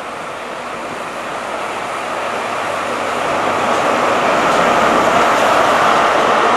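First Great Western HST's leading Class 43 diesel power car, 43194, running into the platform and passing close by; its engine noise swells over the first few seconds and stays loud as the power car draws level.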